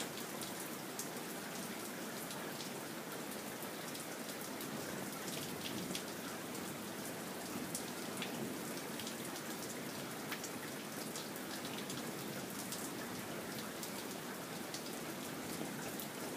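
Steady rain falling during a thunderstorm, with many scattered drops ticking on a hard surface.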